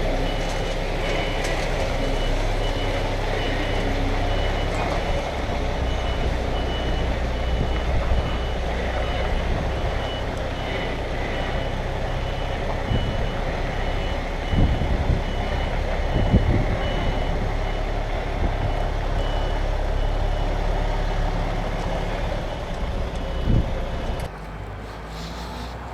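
A reversing alarm beeps in a steady, even rhythm over the low, constant running of a heavy vehicle's engine, with a few dull knocks. The beeping and the engine cut off abruptly near the end.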